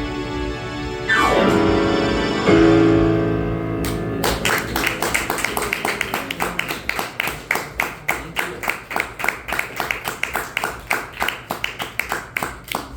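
Keyboard music: held chords, then from about four seconds in a fast, even run of repeated staccato chord stabs, ending with a downward pitch slide.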